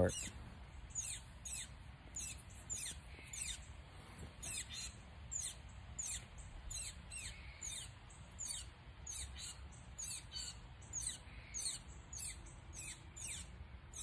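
Female northern cardinal giving a steady run of sharp, high chip notes, each dropping quickly in pitch, about two a second.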